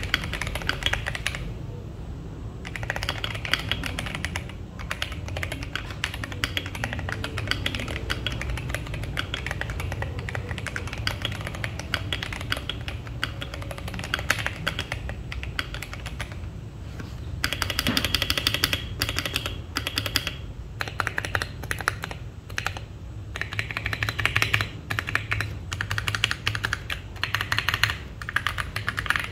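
Fast, continuous typing on a Duke65 mechanical keyboard with Durock Koala tactile switches: a dense stream of keystroke clacks with a few short pauses.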